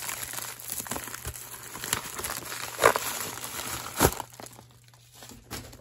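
Plastic poly mailer bag crinkling and tearing as it is ripped open and a box is pulled out of it. Two sharp, louder thumps come at about three and four seconds in, after which the rustling dies down to a few faint clicks.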